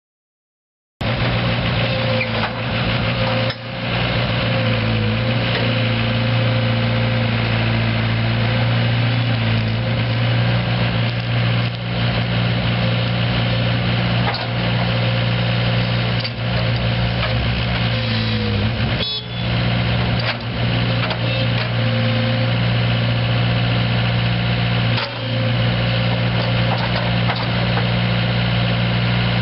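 Komatsu PC75R excavator's Yanmar four-cylinder diesel engine running at a steady speed. It sets in abruptly about a second in and drops out briefly a few times.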